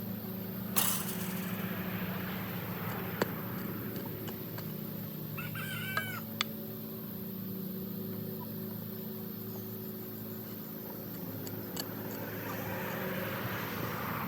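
A chicken calls once, a short rising-and-falling crow about halfway through, over a steady low hum. A few sharp knocks and a scrape, the loudest about a second in, come from shovel work digging a shallow trench.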